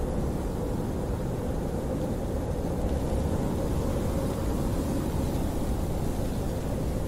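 Snowstorm wind blowing steadily: a deep, even rush of noise with a faint whistling tone held through it.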